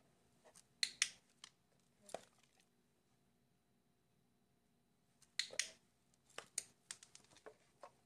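Sharp plastic clicks from a dog-training session in which a dog presses a wireless doorbell push button and is marked with a training clicker. There are two loud close pairs of clicks about four and a half seconds apart, each followed by a few lighter ticks and taps.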